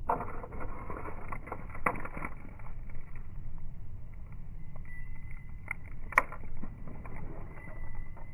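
Wind rumbling and buffeting on a phone's microphone, a steady low roar with scattered crackles, heaviest in the first two seconds, and one sharp click about six seconds in.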